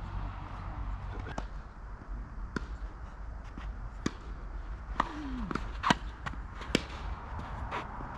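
Tennis rally: a ball struck by racket strings and bouncing on the court, sharp pops about every second, the loudest about six seconds in.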